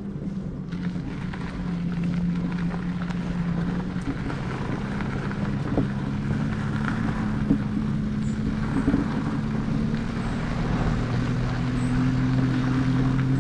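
Electric moped's motor whining steadily at low speed, its pitch rising near the end as it speeds up, with tyres rolling over a gravel trail and a few small knocks from bumps.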